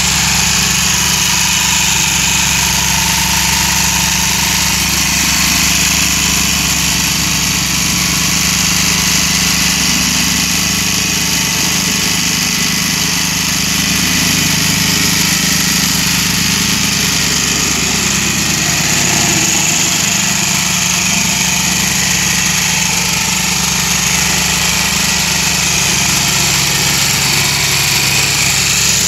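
Plate compactor's small engine running steadily as the vibrating plate is worked over freshly laid interlocking concrete paver blocks, compacting them into place.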